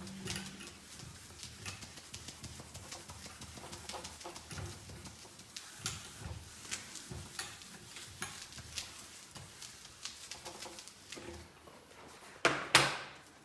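Sponge eraser rubbing across a whiteboard in repeated strokes, with scattered small taps and scrapes. There is a louder knock near the end.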